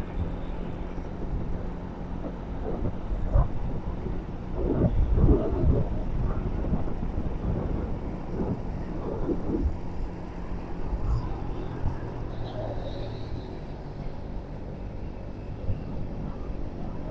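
Motor vehicle traffic: a steady engine hum and road noise, louder and rougher for a few seconds from about four seconds in.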